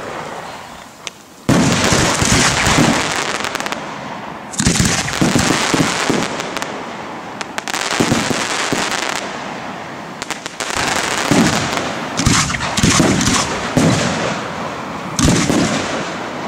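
Aerial firework shells bursting one after another in a dense barrage, with heavy crackling between the bangs; the barrage starts suddenly about a second and a half in.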